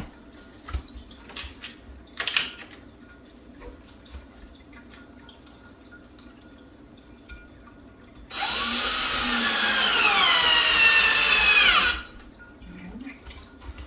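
A few light knocks and clicks, then a power drill runs for about three and a half seconds, driving a screw into a wooden shelf bracket, its pitch dropping near the end before it stops.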